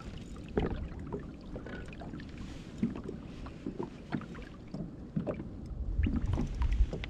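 Water lapping and small scattered knocks against a sit-on-top fishing kayak, with a low rumble building near the end.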